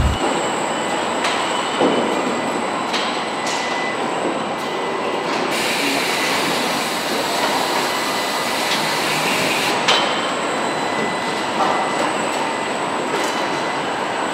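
Truck-cab factory line noise: a steady machinery din with a few sharp clanks, and a stronger hiss for about four seconds in the middle.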